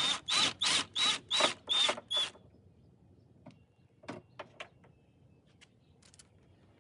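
Ratchet wrench working a nut with quick back-and-forth strokes, its pawl clicking in seven even bursts about three a second, then stopping; a few faint tool clicks follow.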